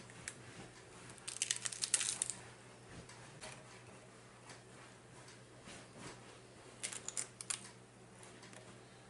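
Crunchy food being bitten and chewed close to the microphone: two spells of rapid crackling crunches, about a second in and again near seven seconds, with a few single crunches between.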